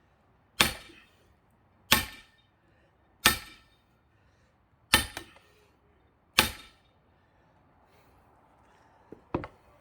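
A heavy hammer striking an axe lodged in a pine log, driving it into the wood: five sharp, ringing blows about a second and a half apart, then two lighter knocks near the end.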